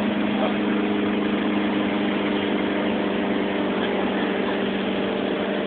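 Towing motorboat's engine running steadily at speed, a constant drone under an even rushing noise.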